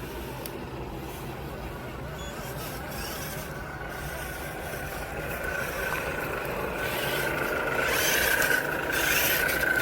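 Electric motor and gearbox of a 3D-printed RC crawler truck giving a steady whine as it crawls, with the tyres scraping and rubbing over the ground, growing louder over the last few seconds.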